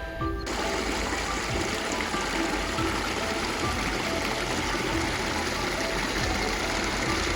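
Steady rush of running water, like a stream, starting suddenly about half a second in, with background music playing underneath.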